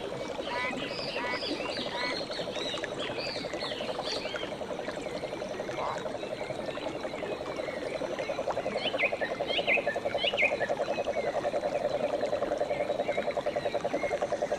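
Frogs calling in a fast, pulsing trill chorus that grows louder in the second half, with birds chirping and whistling over it in short repeated phrases.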